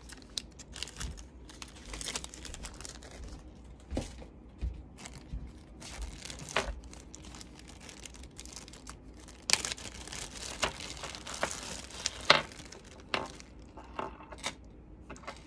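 Thin clear plastic zip-top bags crinkling and crackling as they are handled and pulled open, in irregular sharp crackles that come thickest about two-thirds of the way in.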